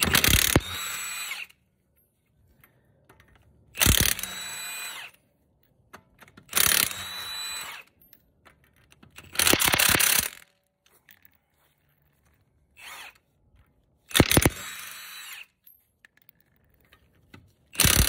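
Cordless impact wrench with a 19 mm socket taking wheel lug nuts off one at a time. About six bursts come a few seconds apart: each is a short loud hammering as the nut breaks loose, then about a second of whirring as it spins off, winding down at the end.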